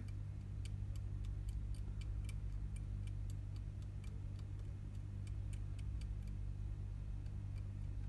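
Metal scraper blade scratching the coating off a trace on an iPhone 7 logic board in quick short strokes, heard as light ticks about four a second, to bare the copper for a jumper wire. A steady low hum runs underneath.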